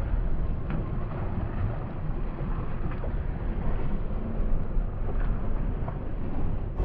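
Wind buffeting the microphone out on open water: a steady, low, rumbling rush with no distinct events.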